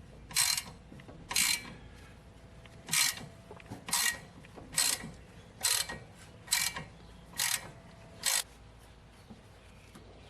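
Hand ratchet wrench worked in repeated strokes, each return swing giving a short burst of clicks, about once a second for nine strokes, then stopping. It is turning the screw of a press tool to push a joint out of the suspension.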